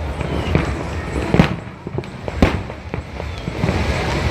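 Fireworks going off: a run of crackles and pops with two sharp, louder bangs about a second apart.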